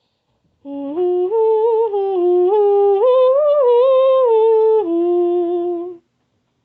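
A woman humming a wordless tune, one note at a time with each note held about half a second. The tune climbs step by step to its highest notes in the middle, then drops to a lower held note at the end.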